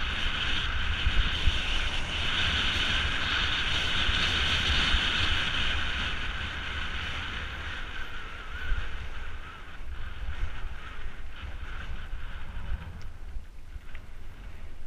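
Mountain bike rolling down a loose gravel track, with wind buffeting the microphone and the tyres hissing and crunching over the stones. The hiss is strongest for the first six seconds or so, then eases, leaving lighter tyre noise and scattered small rattles.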